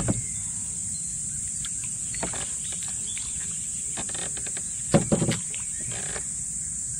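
Steady high-pitched insect chorus, with a few sharp thumps at the start and a louder cluster of them about five seconds in.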